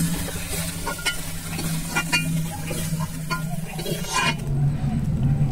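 Spatula scraping and clinking in a kadai of fried chicken mince, the oil still sizzling, as the finished mince is scooped out of the pan; the sizzle drops away about four seconds in.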